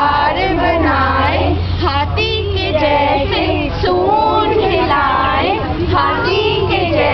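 A group of women singing a Hindi children's circle-game song together, with small children joining in, over a steady low hum.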